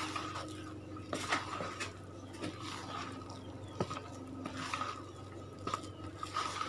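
A spatula folding thick cake batter in a bowl: soft wet scraping with irregular light knocks against the bowl's side, over a faint steady hum.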